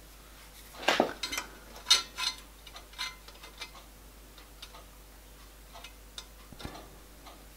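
Small metal boiler support bracket handled against a miniature steam locomotive's copper boiler barrel and frame while being test-fitted: light metallic clinks and taps, the loudest about one and two seconds in, then a few faint ticks.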